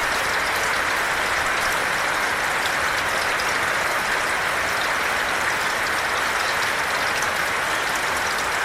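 Heavy rain falling steadily, a dense even hiss of drops with scattered individual drop ticks.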